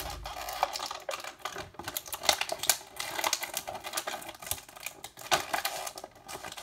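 Hard plastic toy packaging clicking and crackling in quick, irregular snaps as a small figure is worked out of it.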